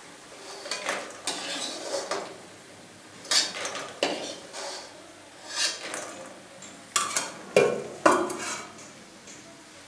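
A perforated steel skimmer scraping and knocking against a steel wok and a steel bowl as fried bori (lentil dumplings) are scooped out of the oil and dropped into the bowl: a string of separate clatters and scrapes, the sharpest a few knocks about seven to eight seconds in.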